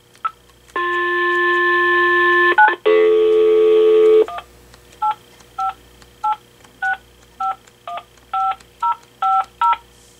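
Vtech 5.8 GHz cordless phone handset on the line: a few seconds of steady phone tones, broken briefly in the middle, then ten touch-tone (DTMF) beeps, about two a second, as a number is keyed in.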